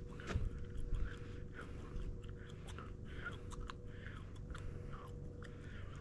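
Faint forest wildlife: scattered short chirps and sharp clicks over a thin steady hum.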